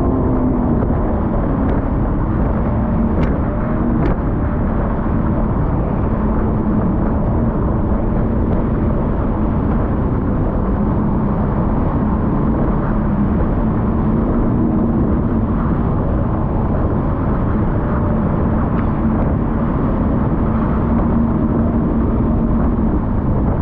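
ATV engine running at a steady speed, a constant drone over a low rumble.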